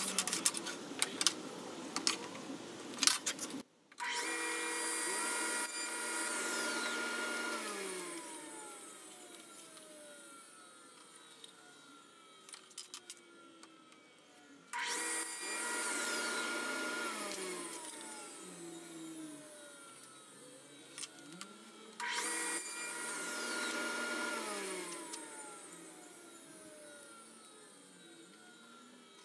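Table saw started three times, each run lasting a few seconds before the motor is switched off and the blade coasts down with a slowly falling whine. Small wooden pieces clatter and knock on the sled at the start and between runs.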